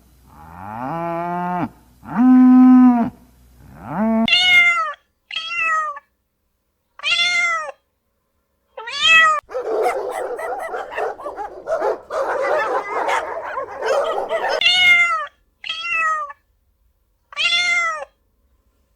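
A domestic cat meowing again and again in short, arching calls, with two lower, longer calls in the first three seconds and a rough, noisy stretch of several seconds in the middle.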